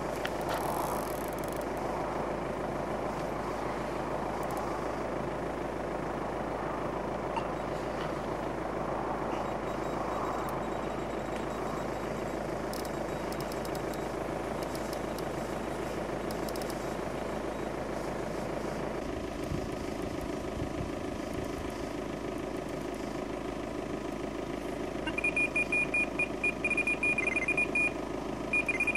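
Electronic carp bite alarm on a rod pod sounding a fast run of high-pitched beeps for about three seconds near the end, briefly stopping and starting again. Under it a steady low hum.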